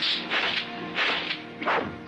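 Kung fu film fight sound effects: about four sharp smacks and swishes of punches and kicks, over background music with held notes.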